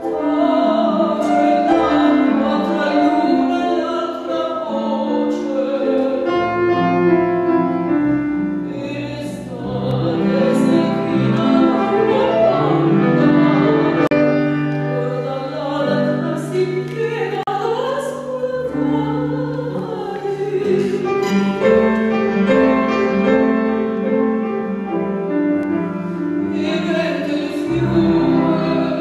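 Mezzo-soprano singing an Italian art song in full operatic voice with vibrato, accompanied by piano.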